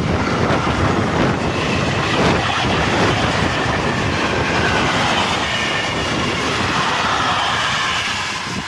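Freight train wagons rolling past close at speed: a steady rumble and clatter of wheels on the rails, with a faint high squeal of wheels, easing slightly near the end.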